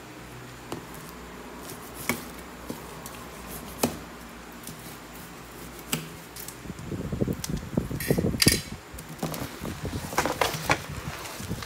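Plastic-wrapped, strapped shipping box being handled and unwrapped: a few sharp clicks and knocks, then from about six seconds in several seconds of crackling, rustling plastic with sharp snaps, and more clicks near the end.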